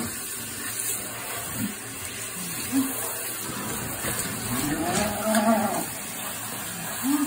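Handheld shower spray running steadily over a wet cat in a shower stall. Short low calls come a couple of times, and about five seconds in a longer, louder drawn-out call that rises and falls, which sounds like the cat meowing in protest.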